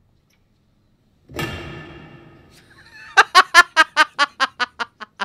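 A sudden crash with a brief ringing tail, then a woman bursts into loud laughter: about ten quick 'ha' pulses, the loudest sound here, fading over about two seconds.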